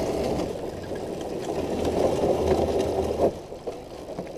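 Small kart engine idling as the kart rolls slowly, with a fast mechanical rattle; it cuts out about three seconds in.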